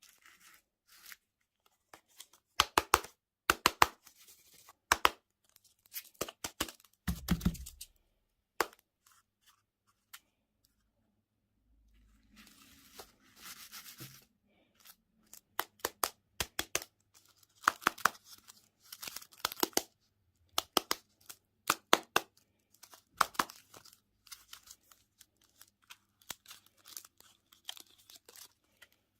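Candy packaging being torn open and crinkled: bursts of sharp crackling clicks and short rustles, with a dull thump about seven seconds in.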